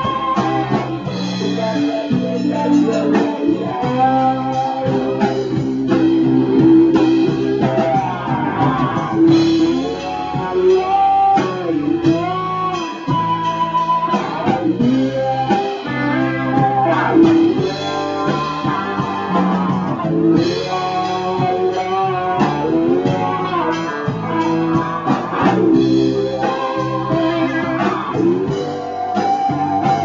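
Live band music led by guitar, in a bluesy roots style, playing steadily.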